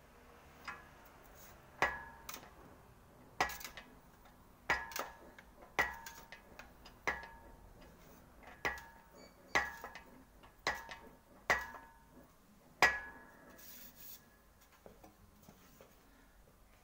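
Sheet-metal quarter-panel repair section worked back and forth through an English wheel. It gives a sharp metallic clink with a short ring roughly once a second, about a dozen times, then only faint ticks near the end.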